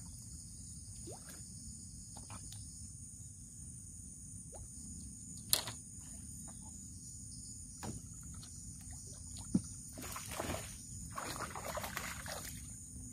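A steady high-pitched chorus of insects in flooded forest over a low rumble. Two sharp knocks come about five and a half and nine and a half seconds in, and a louder stretch of handling noise follows near the end.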